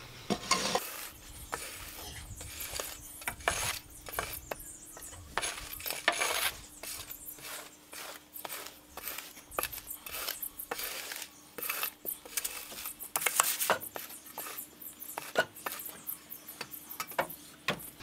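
Flat-bladed rake scraping and dragging damp sand in repeated, irregular strokes, levelling high spots in the sand base for a concrete slab.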